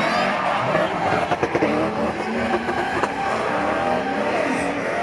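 BMW E46 drift car revving hard with its tyres screeching as it slides past, with a few sharp cracks about a second and a half and three seconds in.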